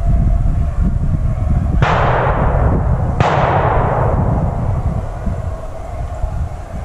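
Two shotgun shots about a second and a half apart, each a sharp blast that trails off over a second or so, over a steady low rumble of wind on the microphone.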